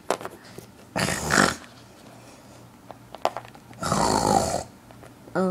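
A child imitating snoring: two breathy pretend snores, one about a second in and one about four seconds in, with a few light clicks between.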